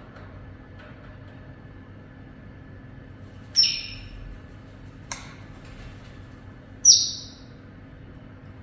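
Pet parrot giving two short, loud, high-pitched calls about three seconds apart, with a single sharp click between them.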